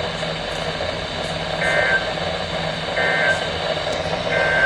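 Three short bursts of warbling digital data tones, about 1.3 seconds apart, from a NOAA Weather Radio over steady radio hiss. This is the EAS end-of-message code that closes an alert broadcast.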